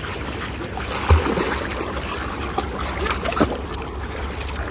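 Shallow river water splashing and sloshing as dogs wade in from the bank, with small scattered splashes and one sharper thump about a second in.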